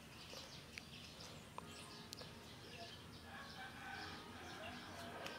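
Faint yard ambience of fowl calling and small birds chirping, with a few light clicks.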